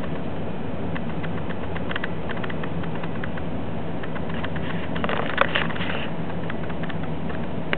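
Small plastic mouse exercise ball rolling over a hard floor: a run of light, irregular clicks and ticks, with a denser burst of clicking about five seconds in.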